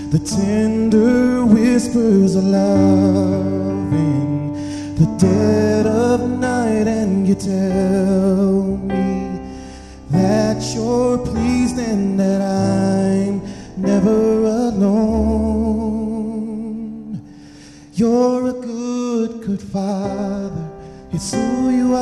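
Gospel song: a singer's melody with vibrato over held keyboard chords, phrase after phrase with short breaths between.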